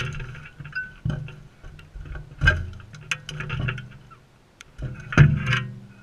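Irregular clicking and knocking of sulphur-crested cockatoos' beaks on the feeder tray and seed as they feed close to the microphone, with louder knocks about 2.5 s and 5 s in.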